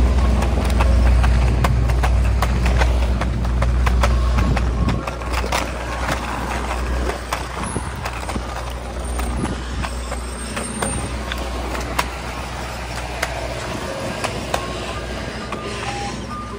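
Soft-serve ice cream truck running with a steady low engine rumble, louder for the first five seconds and then lower, while its jingle plays faintly in short notes, with scattered light clicks.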